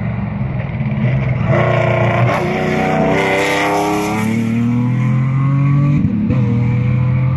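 Rally car engine revving hard as the car drives past at speed, its pitch climbing, loudest about three seconds in, then dropping at a gear change about six seconds in as the car pulls away.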